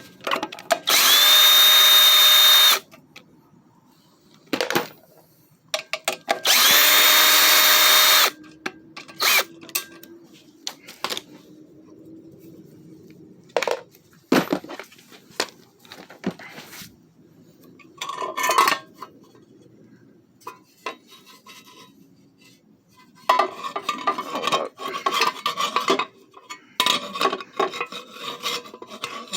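Power drill run twice in steady bursts of about two seconds each, removing fasteners to take a part off the mower. Between and after the runs come clicks, clinks and rubbing of metal parts being handled.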